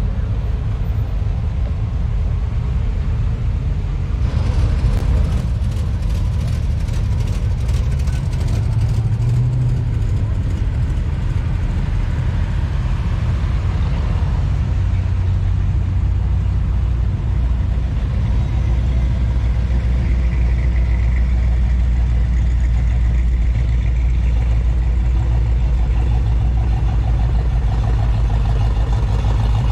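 Hot rod and rat rod engines running as cars roll slowly past, a deep steady engine note that grows stronger in the second half, with a few seconds of sharp crackling about four seconds in.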